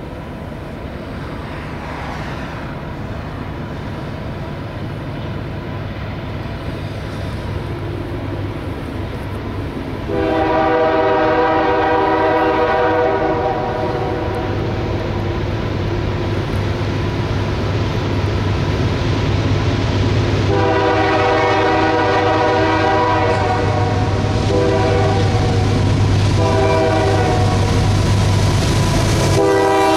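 Air horn of a CSX freight train led by two GE diesel locomotives, sounding two long blasts, then two short ones, with another starting at the very end. Under it is the steady low rumble of the locomotives' diesel engines, growing louder as the heavy train approaches.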